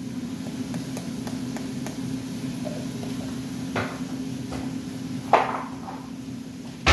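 Small knocks of kitchen items being handled on a counter, the loudest a sharp knock about five seconds in, over a steady low hum.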